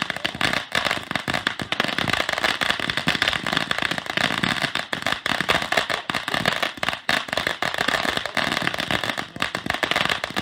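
Consumer firework fountain spraying with a steady hiss and a dense, continuous rapid crackle.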